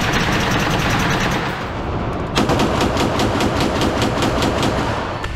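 Rapid gunfire at an indoor shooting range: a fast string of shots that eases off briefly about two seconds in, then a quick, evenly spaced run of shots.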